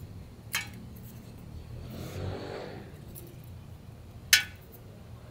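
Thin dry wooden sticks being fed into a burning metal twig stove (Bushbuddy Ultra): a sharp clack about half a second in and a louder one near the end as sticks drop in against the stove, with a soft rustle around the middle.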